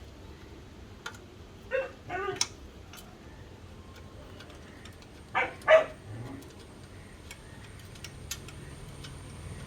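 A dog barking: four short barks in two pairs, about two seconds in and about five and a half seconds in, the second pair louder.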